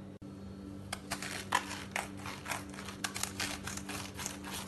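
A knife cutting through a whole head of green cabbage, the tight leaves crunching in a quick run of short strokes that starts about a second in, over a steady low hum.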